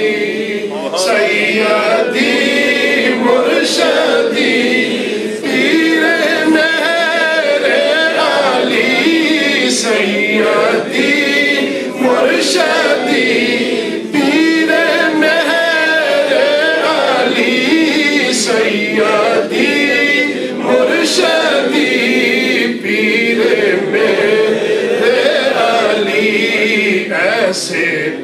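A group of men singing a devotional chant in unison, with no instruments.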